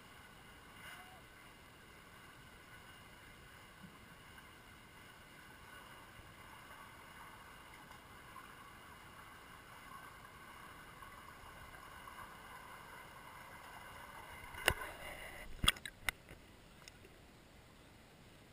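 Muffled underwater pool ambience picked up by a camera in a waterproof housing: a faint steady hiss with a thin hum. About fifteen seconds in come a few sharp knocks and splashy clicks as the camera comes up to the surface.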